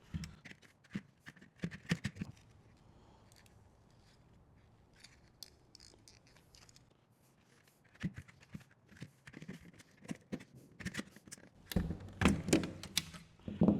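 Plastic clicks, snaps and scrapes as a car HVAC climate control panel is pried apart to free its plastic front frame. They are scattered at first, nearly quiet in the middle, then come as a dense run of sharp clicks near the end.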